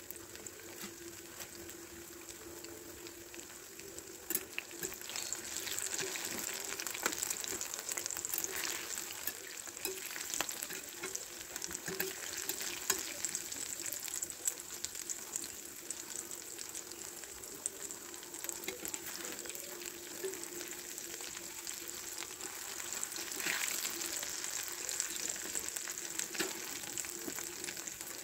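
Breaded mushroom chops deep-frying in a wok of hot oil: a steady sizzle with many fine crackling pops.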